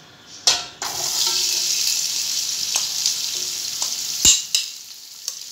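Sliced onions tipped into hot oil in an aluminium cooking pot: a sudden sizzle as they land about half a second in, then steady frying. About four seconds in come two sharp knocks against the pot, and the sizzle is quieter near the end.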